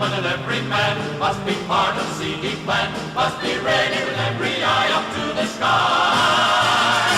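Music with a choir of voices singing over a steady beat, swelling into a fuller sustained chord a little over halfway through.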